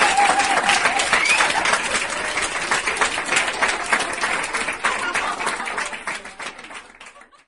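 Crowd applauding, a dense patter of many hands clapping, fading out over the last two seconds.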